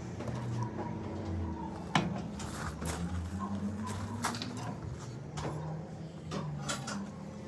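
Light metallic knocks and clinks from a wire fan guard and a bicycle wheel rim being handled, with one sharp clank about two seconds in, over a low hum.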